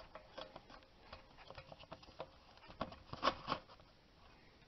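Small scattered clicks and taps of lug nuts being threaded onto the wheel studs by hand, metal against the wheel. The loudest pair of clicks comes a little over three seconds in.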